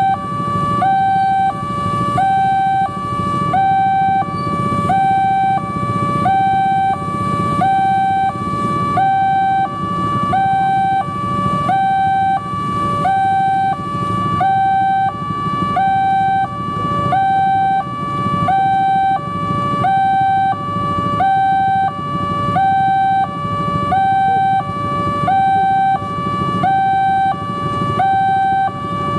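Railway level-crossing warning alarm: an electronic two-tone chime alternating high and low, about once a second, each tone fading like a struck bell. It sounds while the crossing's lights flash and the barrier is down. Road traffic hums underneath.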